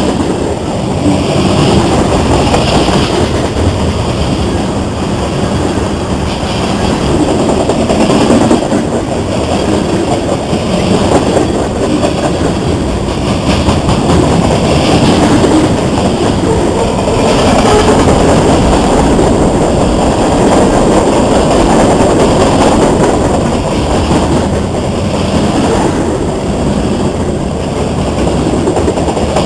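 CSX freight train's cars rolling past close by: a loud, steady rumble and rattle of steel wheels on the rails, swelling a little every couple of seconds.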